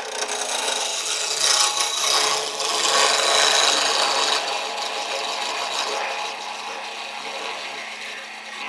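Cherry chair rung spinning on a wood lathe while a turning tool cuts its tenon down to size, a steady scraping and hissing of steel on wood over the lathe's hum. It starts suddenly and eases slightly after the first few seconds as the tenon nears the 5/8-inch size set by the open-end wrench held against it as a gauge.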